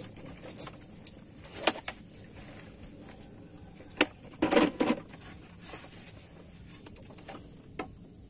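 A few scattered knocks and clicks from someone moving about on a bamboo fishing raft, the loudest a short cluster of knocks about halfway through.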